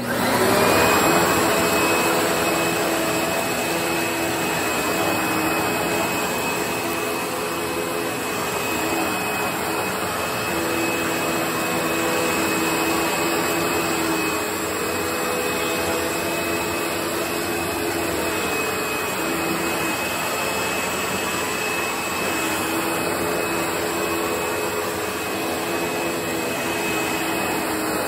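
Panasonic MC-V5005 bagged upright vacuum with a 12-amp motor switched on, spinning up to a steady high whine within about a second. It then runs steadily over a hard floor with its brushroll spinning.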